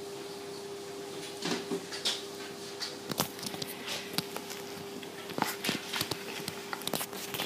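A cat at a Polo mint on a hard windowsill: irregular small clicks, taps and crunches, starting about a second and a half in, over a faint steady hum.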